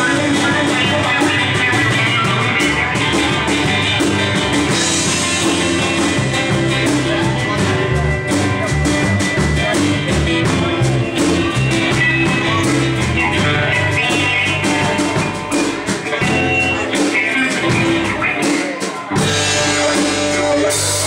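Live rock band playing: electric guitar and drum kit. Near the end the bass thins out for a few seconds, then the full band comes back in with cymbals.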